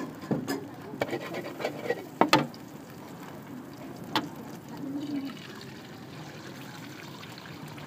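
Metal spatula scraping and knocking on a large oiled wok, with several sharp clacks in the first couple of seconds and one more about four seconds in, over a steady sizzle of frying oil. Partway through, a fresh egg is cracked into the hot oil to fry.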